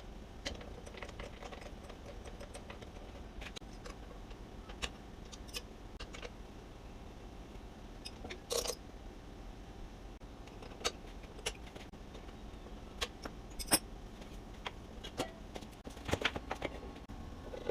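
Metal tools and bench grinder parts clinking and clicking irregularly as they are handled, with louder clinks about eight and a half and thirteen and a half seconds in and a cluster near the end.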